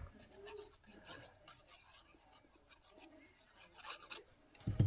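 Faint rustling and light taps of cardstock pieces being handled and placed on a card panel, with a slightly louder rustle about four seconds in.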